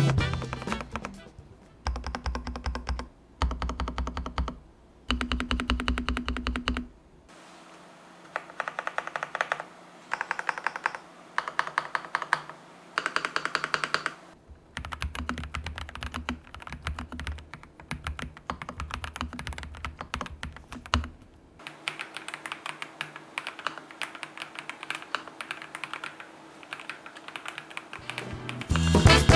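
Typing on an SPM PL87B mechanical keyboard with Haimu Midnight switches, a polycarbonate plate and a POM housing: runs of rapid keystrokes broken by short pauses.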